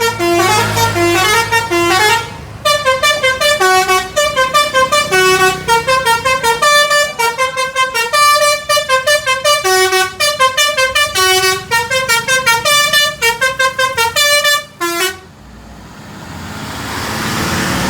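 A bus's basuri-type musical telolet horn playing a quick melody of stepped notes, pausing briefly near the start and stopping about fifteen seconds in. A rising rush of noise follows near the end.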